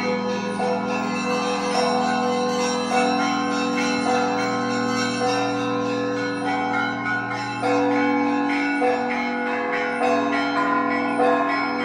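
Russian Orthodox church bells of the Trinity-Sergius Lavra ringing together in festal ringing. Smaller bells are struck over and over, roughly once or twice a second, over the long, steady hum of the large bells.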